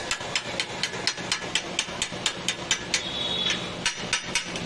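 Hand hacksaw cutting a thin steel strip, a quick, even run of rasping strokes, about five a second, with a brief metallic ring about three seconds in.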